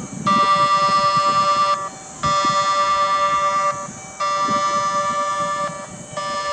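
Railway train-approach warning alarm ringing, warning that a train is coming. It goes in spells of about a second and a half with short gaps between them: three full spells, and a fourth starting near the end.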